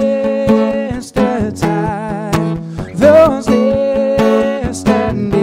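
Acoustic guitar strummed steadily while a man sings long held notes, with a rising bend in his voice about three seconds in: a live solo acoustic performance.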